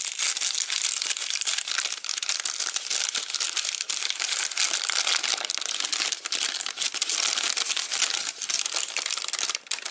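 Brown kraft paper bag being peeled open and unfolded by hand: a steady run of crinkling, crackling paper with a short pause near the end.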